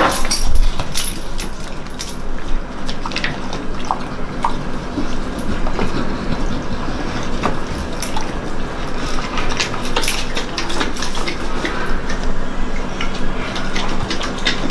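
Pit bull dogs lapping milk from a plastic basin: a fast, irregular run of wet tongue clicks and splashes, with a dull thump at the start.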